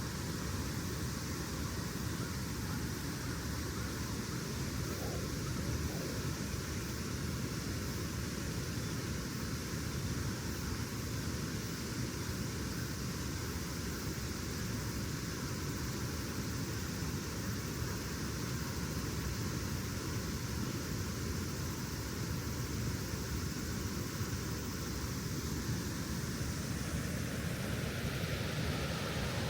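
Steady rushing of fast-flowing water from the Sagami River in flood after typhoon rain, growing louder and brighter near the end as the water gets closer.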